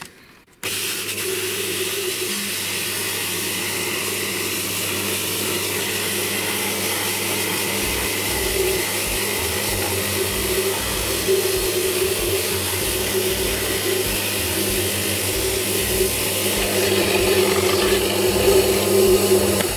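A JET bench drill press starts suddenly about half a second in and runs steadily with a low hum. It spins a homemade sanding drum of stacked hole-saw discs while a hand-held sheet of sandpaper rasps against the drum to true it square. The rasping grows louder near the end.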